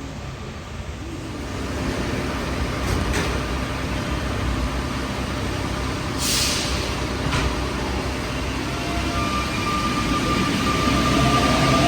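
Rubber-tyred Santiago Metro Line 5 train moving slowly on a wet elevated track in the rain, with a steady hiss of rain and wet running noise. A short burst of air hiss comes about six seconds in, and a motor whine grows louder near the end.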